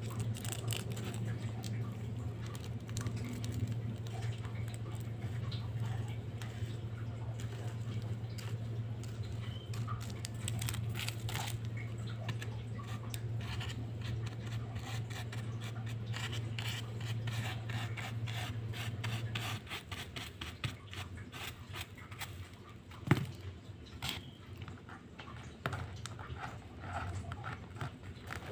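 A pointed wooden stick scratching and picking at a sand-art picture board, with light scraping and grains of coloured sand pattering. A low steady hum runs underneath and stops about two-thirds of the way through, and a single sharp tap comes a few seconds later.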